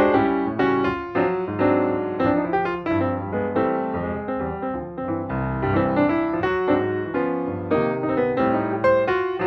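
Background piano music: a steady run of struck notes over a bass line.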